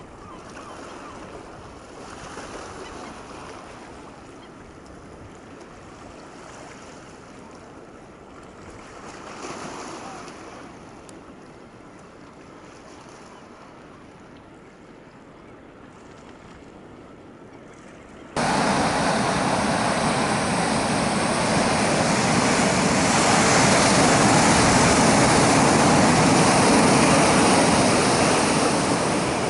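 Faint wash of a calm sea for most of the clip. About two-thirds of the way through it cuts suddenly to loud surf: waves breaking and washing over a rocky shore.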